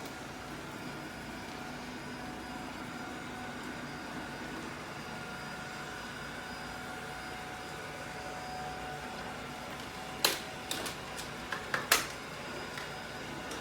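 ILIFE robot vacuum cleaner running with a steady whirring hum. A few sharp knocks come in quick succession about ten to twelve seconds in, the last the loudest.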